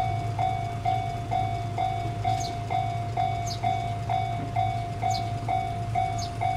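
Railway level-crossing warning bell ringing in even strokes, about two a second, over the low, steady drone of the approaching train.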